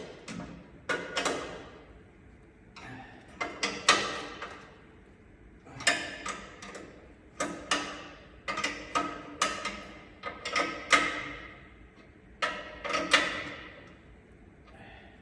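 Metal hand tools clattering and clinking together in irregular clusters, each knock leaving a short metallic ring, as tools are handled and rummaged through.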